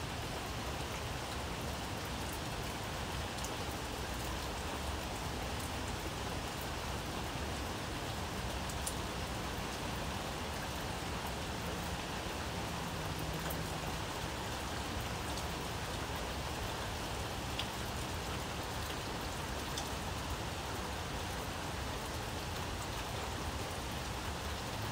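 A steady, even hiss that does not change, with a few faint ticks.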